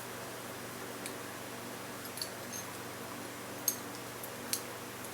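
A few light, sharp clicks and taps of small steel parts being handled and fitted together, over a steady low hum.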